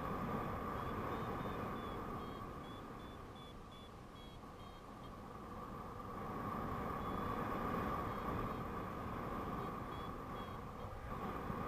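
Wind rushing over the microphone of a paraglider in flight, swelling and easing. Over it a variometer sounds short high beeps in two spells, the first few seconds and again later on, its signal of rising air.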